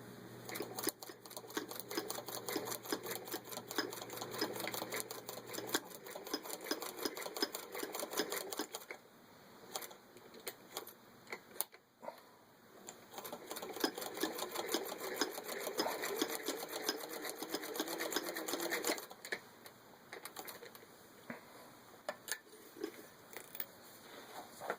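Hand-cranked 1929 Singer 206D sewing machine running a straight stitch through six layers of denim, its needle and shuttle mechanism clicking rapidly. It runs for about nine seconds, pauses briefly, runs again for several seconds, and ends with a few scattered clicks, as the stitching goes forward and in reverse.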